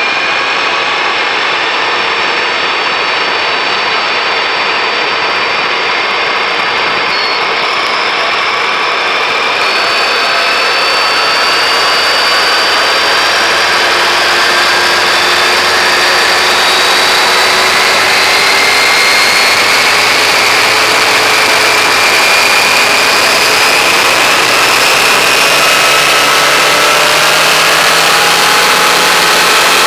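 Toyota Auris Hybrid drivetrain heard from inside the engine bay: the high-pitched electric whine of its 60 kW motor, several tones gliding slowly up and down over a loud rush of noise. Lower tones come in and rise near the end.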